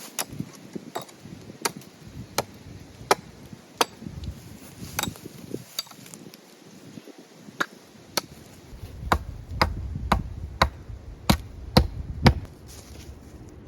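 Repeated blows of a hand tool striking wood while a roundhouse beam is fitted, about one to two a second. The blows come faster in the second half, with the hardest strikes near the end.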